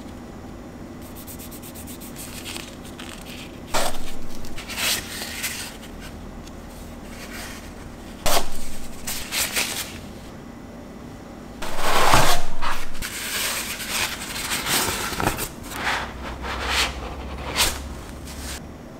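Rustling and scraping of paper wrapping and cardboard packaging handled by hand, in irregular bursts, loudest about twelve seconds in.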